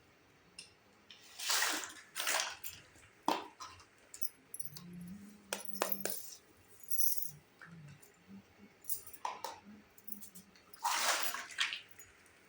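Small plastic toy kitchen pieces and their packaging handled: several short rustling swishes and a few sharp clicks.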